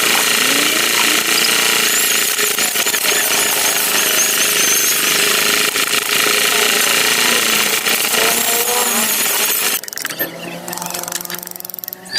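Power tool running loud and steady as it carves MDF, then stopping about ten seconds in.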